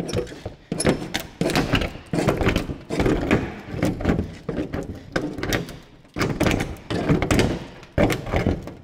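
Steel wing panel of a Fiat Dino body being wrenched back and forth by hand, the sheet metal flexing and thunking over and over as its last fixings give way.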